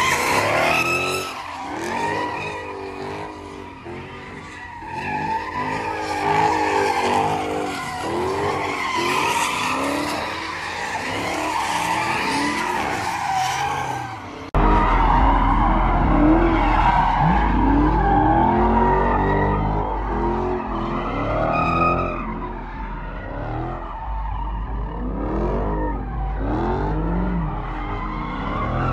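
Cars doing donuts and burnouts: tyres squealing and engines revving up and down. About halfway through, the sound jumps to a louder, deeper engine rumble.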